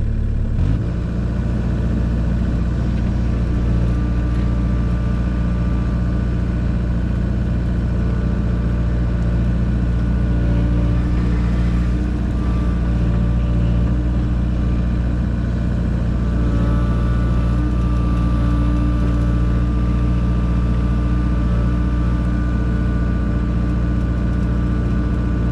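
Mini excavator's diesel engine running steadily under load, close by. It rises a little in pitch about a second in and then holds even.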